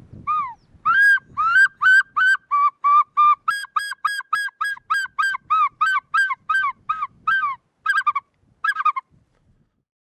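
Bird-call imitation whistled through cupped hands and fingers: a fast run of about twenty short, clear notes, about three a second, each bending up and back down, ending with a couple of quavering notes.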